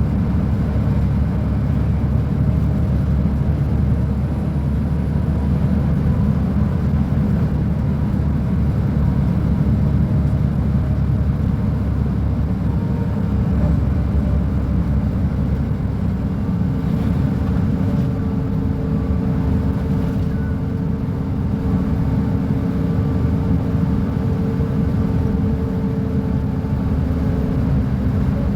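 Mercedes-Benz O500UA articulated bus's diesel engine running, a steady low drone; about halfway through a higher steady tone joins in as the engine's note changes.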